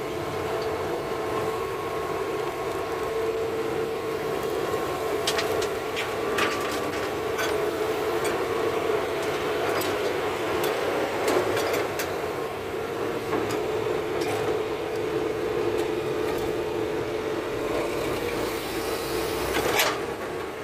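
Hitachi crawler excavator's diesel engine running steadily with a constant hum, alongside a dump truck. From about five to twelve seconds in, and once more near the end, sharp knocks and clatter as the bucket drops soil and stones into the steel truck bed.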